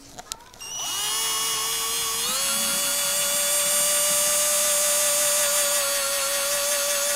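Cordless electric drill driving a screw through a metal brace into the wooden cat tree post. The motor whine winds up about a second in, steps up in pitch about two seconds in, then runs steadily as the screw is driven tight.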